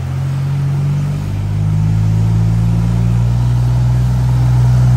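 Engines of 4x4 SUVs and a John Deere tractor driving through deep mud and water. A steady low engine drone grows louder after about a second.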